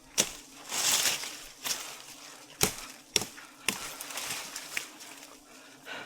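Several sharp, irregular chopping knocks, with a brief rustle about a second in.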